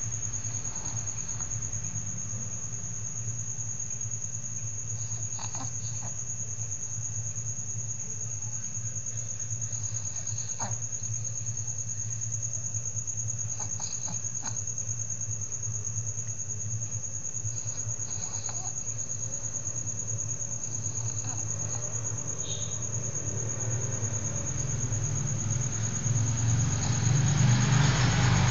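Soft snoring, a faint breath about every four seconds, under a steady high-pitched whine and a low hum. A louder rushing noise builds up near the end.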